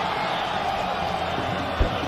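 Stadium crowd noise from the broadcast, a steady wash of many voices, with one short low thump near the end.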